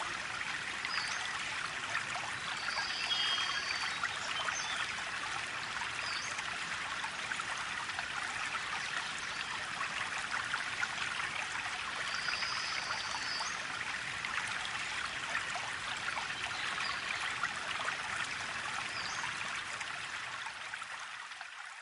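Flowing water trickling at a bank, a steady even hiss, with a few short high chirps scattered through it; it fades out near the end.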